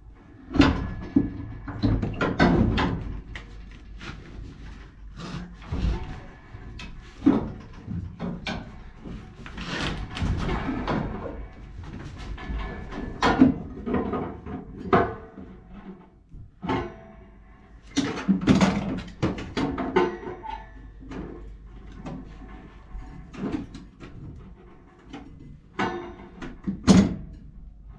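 Irregular metal knocks, clanks and scraping as a cut-down anode rod is worked down into the anode port on top of a tank water heater, the rod still catching as it goes in. Music plays faintly underneath.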